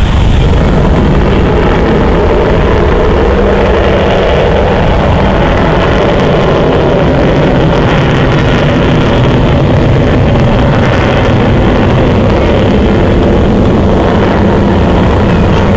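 Avro Vulcan bomber's four Rolls-Royce Olympus jet engines during a display pass: loud, steady jet noise that holds without a break.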